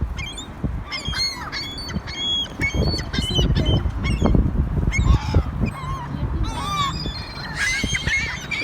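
A flock of seagulls calling: many short, overlapping squawks throughout, as the gulls crowd in over thrown food. A low rumble rises under the calls in the middle.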